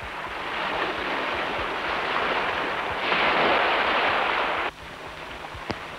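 Small waves breaking and washing around a rock at the edge of a sandy beach, with a bigger surge about three seconds in. The surf cuts off suddenly near the end, leaving a quieter background and a single click.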